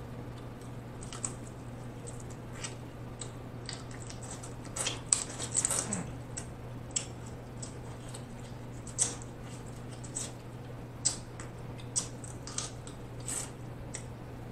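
Close-up eating sounds of snow crab meat: irregular wet lip smacks, sucking and chewing clicks, busier about five seconds in, over a steady low hum.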